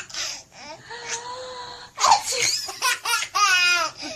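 A young child laughing hard in repeated bursts of belly laughter, loudest in the second half.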